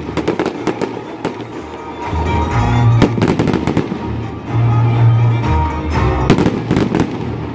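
Aerial fireworks display: repeated bangs and crackling from bursting shells, the loudest about three and six seconds in, over loud music with a deep bass line.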